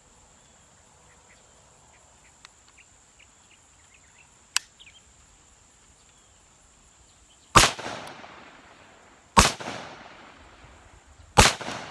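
Three single rifle shots from an AK-pattern rifle in 7.62×39 mm, about two seconds apart in the second half, each trailing off in a short echo. Before them a single sharp click about four and a half seconds in, over a steady high insect buzz.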